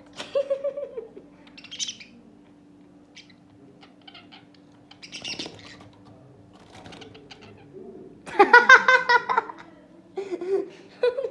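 Pet budgies squabbling in their cage: short bursts of wing flapping and scratchy chirps, with a louder burst of harsh calling about eight seconds in.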